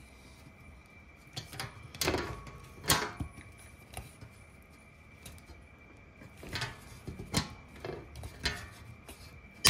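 Hand pop rivet gun being squeezed on a 3/16-inch aluminium pop rivet through aluminium angle, giving a series of sharp clicks: a couple about two to three seconds in, then several more later on as the rivet is pulled tight.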